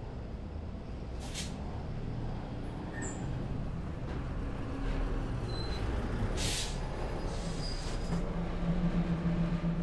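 Low, steady rumbling background noise, like vehicle or traffic noise, with two short hisses, one about a second and a half in and one about six seconds in. A steady low tone comes in about eight seconds in.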